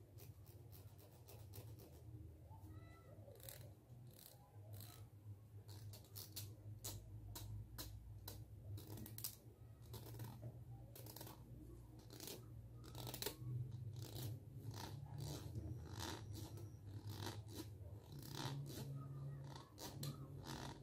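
Green plastic comb's teeth scratching against a microphone head: a steady run of irregular dry clicks and scrapes over a steady low hum.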